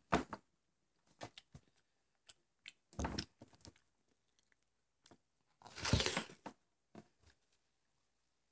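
A person biting and chewing watermelon flesh in a few separate crunching bites, the longest and loudest about six seconds in.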